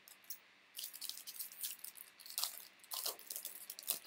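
Foil wrapper of a baseball card pack crinkling as it is handled and torn open: a dense run of irregular crackles starting about a second in.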